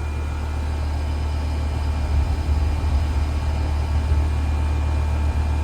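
Air-conditioning condensing unit running steadily with a low hum from the compressor and condenser fan motor, back in operation on a newly replaced capacitor.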